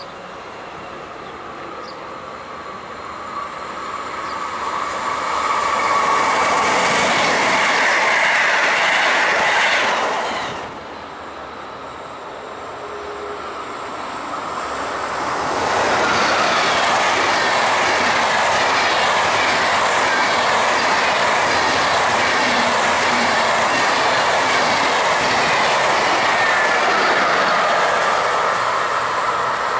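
Two SBB passenger trains passing. A red regional train swells up and cuts off suddenly about ten seconds in. From about sixteen seconds a locomotive-hauled train runs close by on a curve, with loud steady wheel noise, an even rhythmic clatter of wheels over rail joints, and a high squeal from the wheels.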